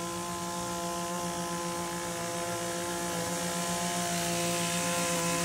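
Small petrol engine of a lawn mower running at a steady pitch, a constant droning hum that grows slightly louder near the end.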